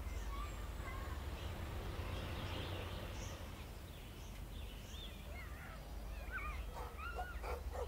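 Outdoor ambience: a steady low rumble, with a string of short, high, gliding calls in the second half.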